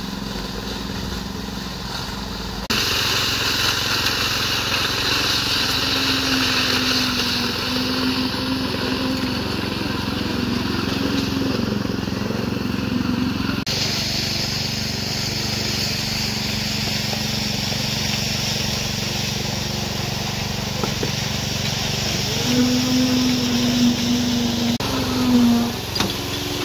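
Small petrol engines of concrete-finishing machinery running steadily on a job site, starting with a walk-behind power trowel's engine. The machine noise changes abruptly twice where the picture cuts to other site equipment.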